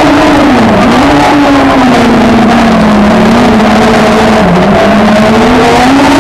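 Citroën Saxo autocross prototype's engine at race pace, heard on board. The revs drop about a second in as the car slows into a bend, stay lower through it with a brief dip, and climb again near the end as it accelerates out.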